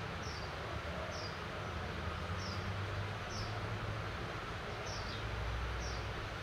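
Steady hiss of falling rain over a low rumble. A short, high, falling chirp repeats about once a second.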